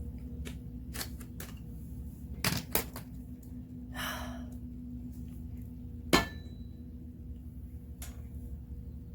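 Scattered knocks and clinks of hard objects being handled over a steady low hum. A brief scraping hiss comes about four seconds in, and a sharp knock about six seconds in is the loudest sound.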